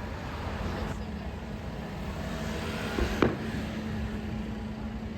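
Low outdoor rumble with a steady hum, broken about three seconds in by a single sharp firework bang.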